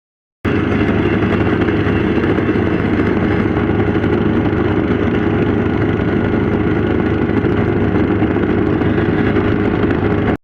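An engine running steadily at a constant speed, a loud even drone that starts suddenly about half a second in.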